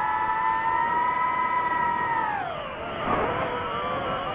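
DJI FPV drone's motors and propellers whining at a steady high pitch, which slides down as the throttle is eased a little past halfway, then breaks into a jumble of shifting tones with a brief louder rush as the motors spin back up through a turn.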